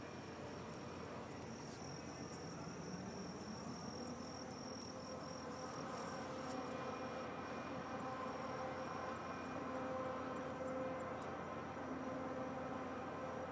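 Insects chirring in a thin, steady high trill that fades about halfway through, over a faint steady low hum.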